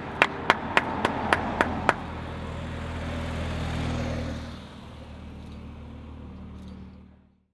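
A spectator clapping steadily, about three to four claps a second, stopping about two seconds in. A following car then passes, its engine and tyre noise swelling to a peak about four seconds in and dying away.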